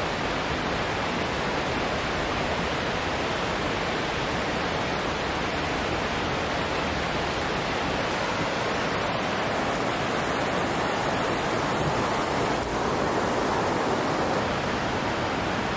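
A fast mountain stream rushing below a suspension bridge: a loud, steady, unbroken rush of water.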